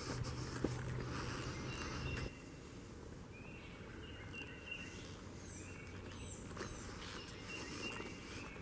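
Forest birds calling with short, high, repeated notes. For the first two seconds a low steady hum and a few footstep clicks on the dirt trail are heard, then they cut off suddenly.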